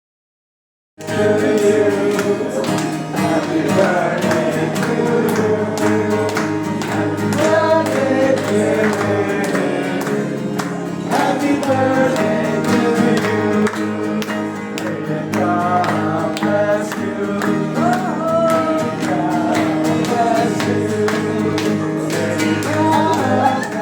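A song with a singing voice and instrumental backing, cutting in abruptly about a second in after dead silence.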